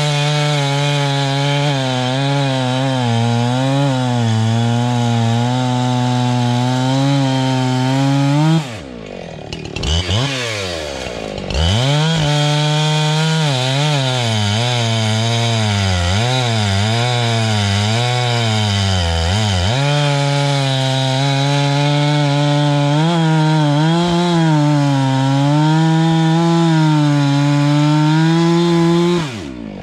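Husqvarna two-stroke chainsaw cutting through logs at full throttle, its pitch wavering as the chain loads in the wood. About nine seconds in the throttle drops and the engine note falls and rises for a couple of seconds before the saw goes back into the cut; near the end it is let off.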